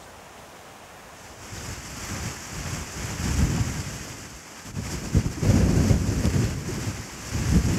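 Wind buffeting the microphone: a low rumble with a hiss of wind above it that builds after about a second and rises and falls in several strong gusts.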